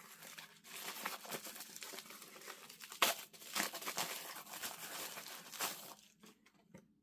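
Packaging crinkling and tearing as it is handled and opened by hand, with one sharper snap about three seconds in; it stops about a second before the end.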